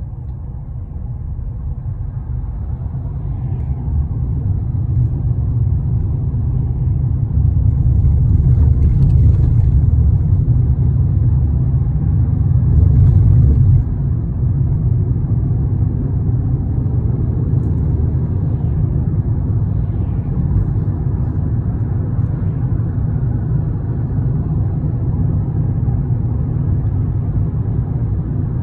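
Steady low rumble of a moving vehicle. It grows louder in the middle, then drops suddenly about halfway through and settles.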